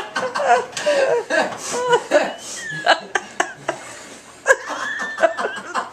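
Voices with chuckling, broken by a couple of sharp clicks or knocks, one about three seconds in and a louder one a second and a half later.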